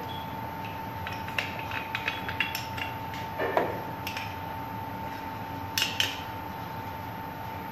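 Spanner and ratchet wrench clinking on the steel nuts and flange bolts of a rubber pump expansion joint as the bolts are tightened: scattered short metallic clicks and clanks, a few of them louder.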